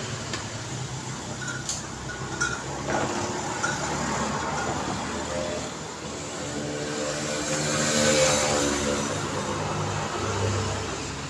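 Road traffic going by: a steady mix of vehicle engines and tyre noise, with one vehicle swelling louder as it passes about eight seconds in. A couple of short clicks come near the start.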